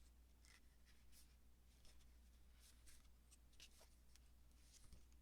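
Near silence: room tone with a low hum and a few faint, scattered ticks and rustles.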